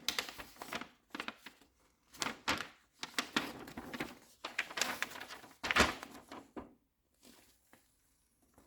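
Motherboard box and packaging being handled by hand: a busy run of clicks, taps and rustles that stops about seven seconds in, leaving only a couple of faint clicks.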